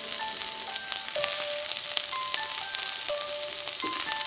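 Chopped green beans, onion and green chillies frying in coconut oil in a pan, with a steady sizzle. Soft instrumental background music plays single held notes over it.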